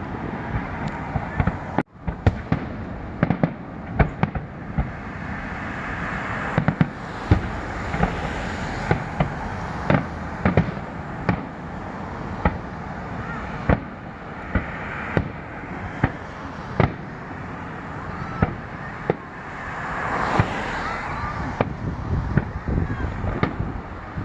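Fireworks going off: a steady stream of irregular sharp bangs over continuous crackling, with a brief dropout about two seconds in.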